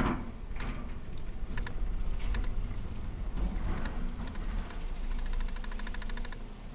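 Car rolling slowly onto a ferry's steel vehicle deck, heard from inside the cabin: a low steady rumble with a loud clunk at the start and several lighter knocks, then a fast run of ticking about five seconds in.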